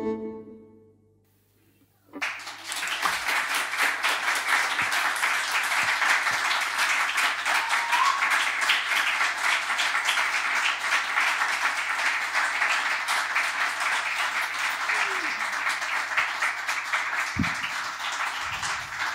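A violin's last note dies away, and about two seconds later a small audience starts applauding and keeps clapping steadily.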